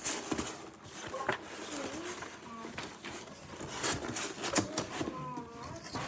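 Cardboard box being handled and its flaps opened, giving scattered taps, knocks and scrapes, with faint voices in the background.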